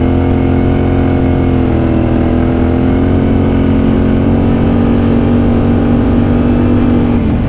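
Yamaha Ténéré 700's parallel-twin engine running steadily under way, its pitch dipping slightly about two seconds in and dropping briefly just before the end.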